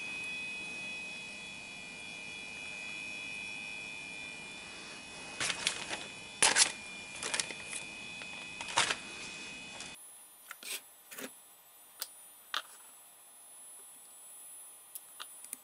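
Scattered light clicks and taps of a hard drive's controller circuit board and its connector being handled by hand, the loudest about six and a half seconds in.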